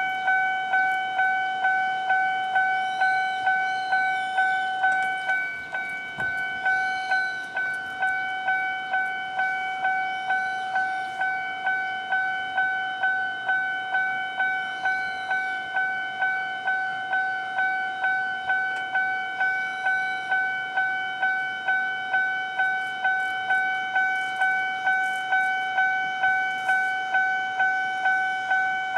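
Japanese railway level-crossing warning bell, the electronic type, ringing over and over in an even rhythm of about two strokes a second: the crossing's alarm, sounding while a train approaches and the crossing is closed.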